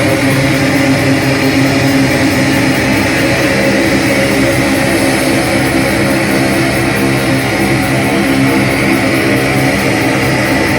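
Live rock band playing with guitars, loud and unbroken, as heard in a concert hall.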